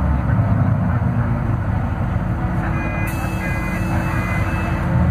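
Scania DC09 five-cylinder diesel of a Scania K280UB bus pulling steadily while climbing a grade, heard from inside the passenger cabin. A few short, high electronic beeps sound a little past halfway.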